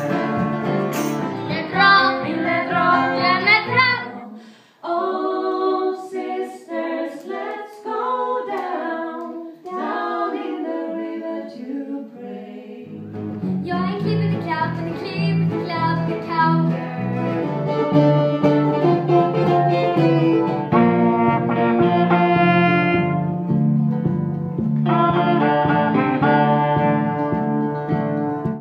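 Live stage music edited together from several songs: singing with guitar and fiddle accompaniment, a man's voice first and later a girl's. The music cuts abruptly from one song to the next a few times.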